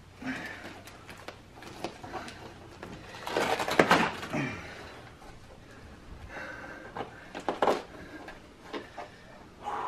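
Duct tape crinkling and tearing as a person bound in it pulls and twists at the wrapping, with a louder, longer rip about three and a half seconds in and another burst of crackling near the end.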